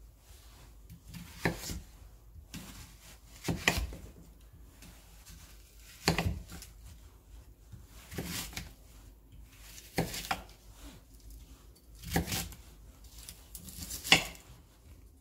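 Kitchen knife striking a cutting board while cutting an onion: about seven separate cuts, roughly two seconds apart.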